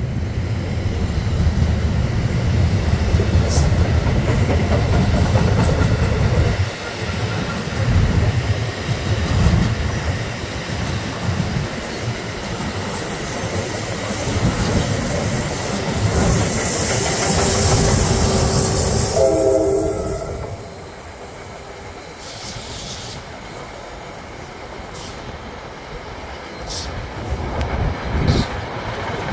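New Jersey Transit double-deck commuter train passing close by, wheels rumbling and clattering over the rails, with a rising hiss in the second half. A short horn blast sounds about twenty seconds in. The sound then drops as the last cars and the electric locomotive pushing at the rear roll past.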